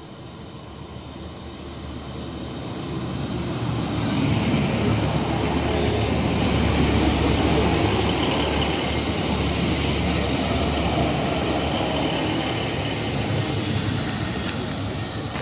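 A First Great Western diesel multiple-unit passenger train running in alongside the platform. Its engine and wheel rumble grows louder over the first few seconds, stays loud as the coaches pass close by, and eases off near the end.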